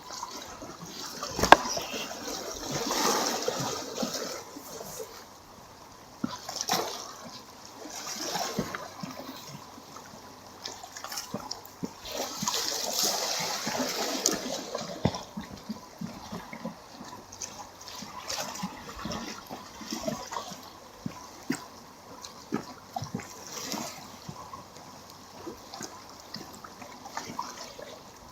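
Black Sea waves washing and splashing against the rocky shore, swelling and fading every few seconds, with short sharp clicks scattered through.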